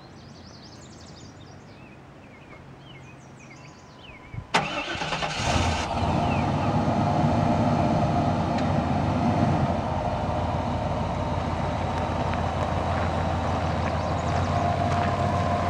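1995 Chevrolet K1500 pickup's engine cranking briefly and catching about four and a half seconds in, then idling steadily, a little louder for the first few seconds before settling.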